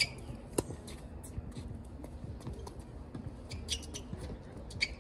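Tennis rally on a hard court: a few sharp pops of the ball off racquet strings and court, the first two about half a second apart near the start, with short shoe squeaks near the end.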